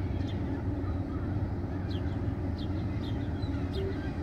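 A steady low rumble with small birds chirping several times, short high chirps bunched in the middle.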